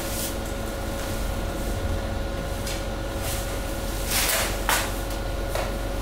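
Hydraulic waste press running with a steady hum, its power unit droning underneath. Short hissing, rustling rushes come about four seconds in as the bagged powdery waste is crushed.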